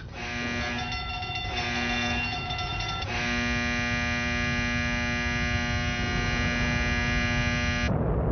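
A sustained electronic drone of several steady tones, shifting to a fuller chord about three seconds in. Near the end the drone cuts off and a deep rumbling roar takes over: the onset of a hydrogen bomb explosion.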